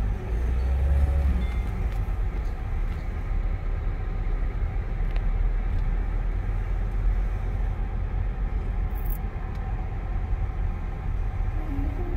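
Car interior noise while driving slowly: a steady low engine and road rumble heard from inside the cabin.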